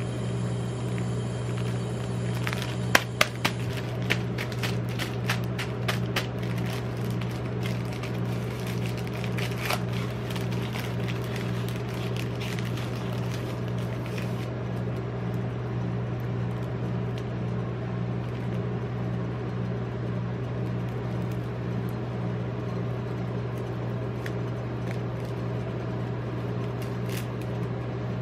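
Plastic chocolate-bar wrappers crinkling and crackling as a multipack bag is torn open and the bars are handled, with a few sharp snaps early on the tear and most of the crackling in the first half, then a few more crinkles near the end as a single bar is unwrapped. Under it runs the steady low hum of the rolled-ice-cream cold plate's refrigeration unit.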